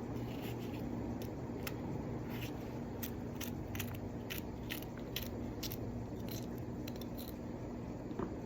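A knife cutting and slashing through a fresh, crisp vegetable, giving a run of short, sharp crunchy snips at an irregular pace of about two a second. A steady low hum runs underneath.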